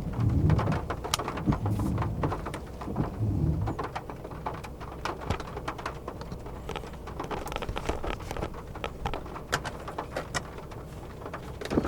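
Rain falling, with many separate drops tapping sharply against a surface. In the first few seconds there are low, repeated sounds about a second and a half apart.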